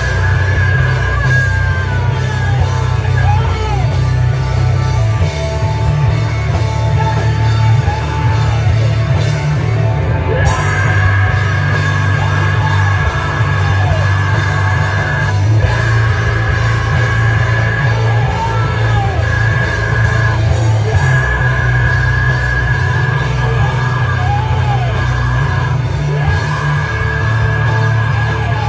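A live rock band playing loud, with drums, bass and guitars and a singer yelling over them. A high steady tone rings above the band for much of the time.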